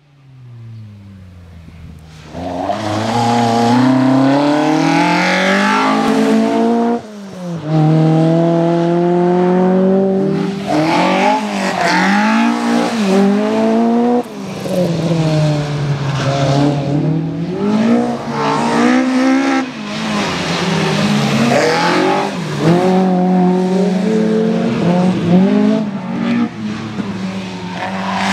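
VW Golf Mk2 rally car's engine revving hard under full throttle, its pitch climbing and then dropping sharply over and over as it changes gear and lifts for corners. It starts faint and far off and is loud from about two seconds in.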